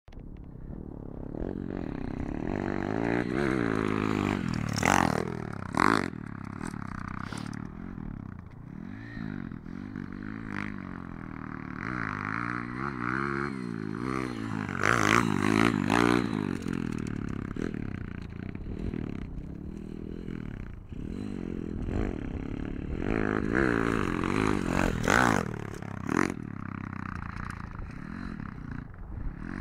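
Pit bike engine revving up and down over and over as it is ridden round a dirt track. It gets loudest three times, about ten seconds apart, as the bike comes close.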